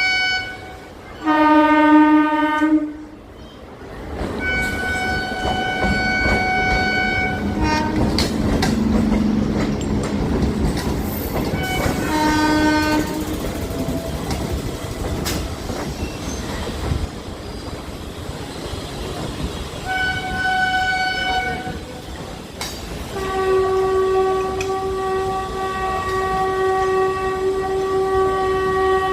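Train horn sounding in about five blasts at a few different pitches, the last held for about six seconds, over the rumble of a train running on the track.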